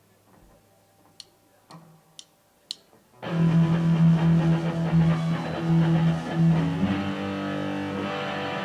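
A few sharp ticks about half a second apart over a quiet stage, then about three seconds in an electric guitar comes in loud with held chords, opening a live rock song.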